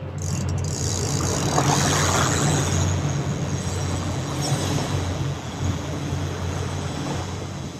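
Fishing boat's motor running steadily with the boat underway, a low engine hum under a continuous rush of wind and water.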